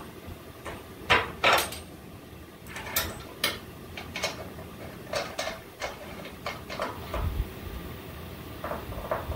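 Steel suspension parts clinking and knocking as a 4-link bar and its bolt are worked into a frame bracket by hand: a run of short metallic knocks, the two loudest about a second in.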